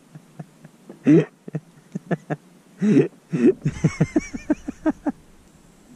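A man's short wordless vocal sounds, two brief bursts about a second and three seconds in, with a run of light clicks between and after them, about four a second near the middle.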